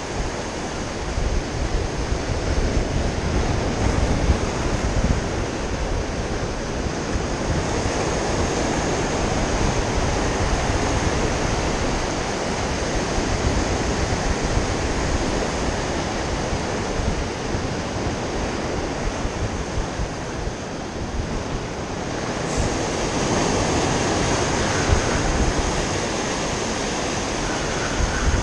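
Surf breaking and washing against a rocky lava shoreline, with wind rumbling on the microphone.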